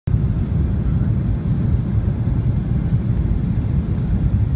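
Steady low rumble of a Boeing 737-900ER's cabin on approach: engine and airflow noise heard from a window seat over the wing, with the flaps extended.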